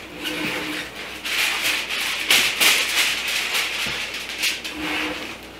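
Aluminium foil crinkling and rustling as it is handled and pulled off a baked pie, with a few light clicks mixed in.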